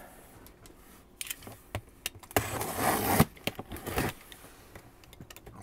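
Cardboard box being handled: scraping and rustling of cardboard with a few light clicks and knocks, the longest scrape about halfway through.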